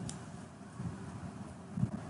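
Quiet steady background hiss and hum from the recording, with a faint click just after the start and a soft low thump near the end.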